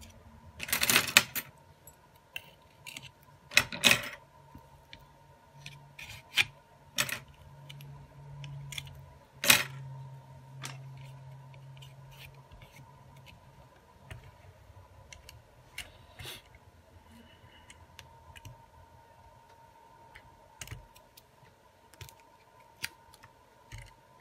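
Phone parts clicking and tapping as a Huawei Nova 7's frame and replacement screen are handled and pressed together by hand. The loudest clicks come about a second in, near four seconds and near ten seconds, with lighter ticks scattered between.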